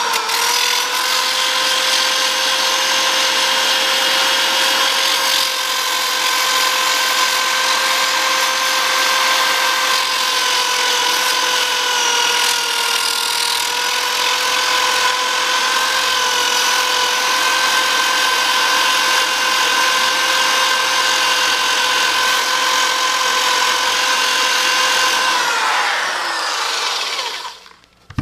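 Small handheld grinder with an abrasive disc running at a steady high whine while grinding the cast-in lettering off a motorcycle wheel hub. Near the end its pitch falls as it winds down and stops.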